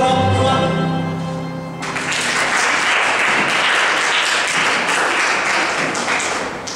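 Music for the folk dance stops abruptly about two seconds in, and the audience breaks into applause that runs for a few seconds and tails off near the end.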